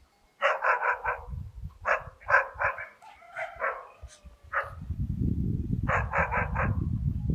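A dog barking in quick runs of three or four barks, three times, with a few single barks between. A steady low rumble runs underneath in the second half.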